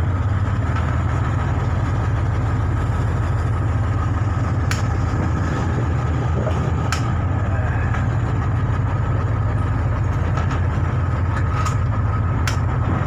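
Launch boat's engine running steadily under way: a loud, even low drone with water and hull noise over it. A few sharp clicks sound over it, about five seconds in and again near the end.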